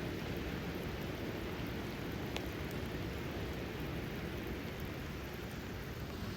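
Steady rain falling on a vehicle, heard from inside the cabin, with a low steady rumble beneath it and one faint tick about two and a half seconds in.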